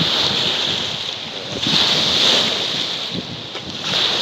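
Wind-driven waves washing onto a lakeshore in strong gusty wind, a loud hiss of surf that swells and eases about every two seconds.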